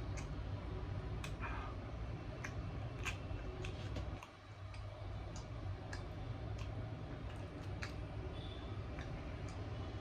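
Eating sounds: irregular soft clicks and smacks of chewing and handling chicken and roti, over a steady low hum.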